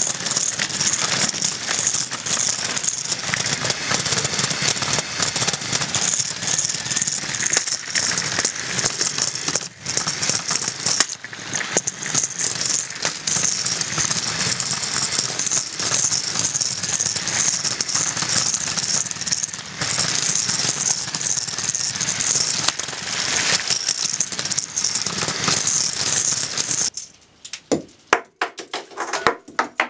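Lego omniwheel race car driving across a hard vinyl floor: a continuous plastic rattle from its omniwheels, with short breaks about ten and twenty seconds in. Near the end the rattle stops and a few sharp clicks follow.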